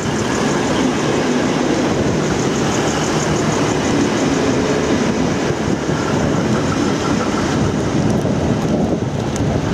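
V/Line VLocity diesel multiple units running close by at the platform: a loud, steady diesel engine and train running noise without any pause.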